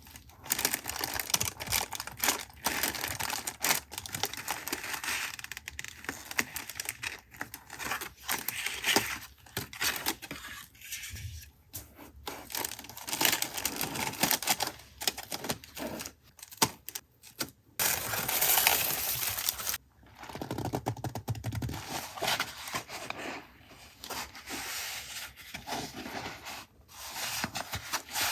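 Paper and packaging handled close to the microphone: irregular rustling, crinkling and tearing, with small taps and clicks as items are picked up and set down.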